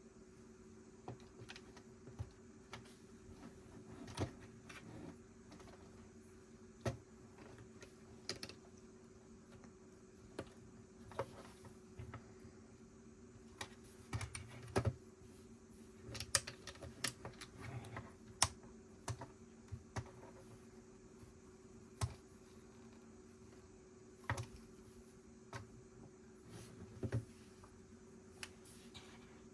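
Plastic Lego bricks clicking and rattling as they are handled and pressed together, in irregular sharp clicks that come thickest around the middle. A steady low hum runs underneath.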